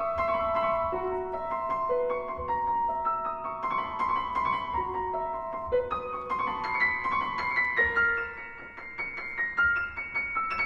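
Piano playing a flowing passage of many quick notes, with some notes held and ringing over them, in a chamber piece for oboe, bassoon and piano.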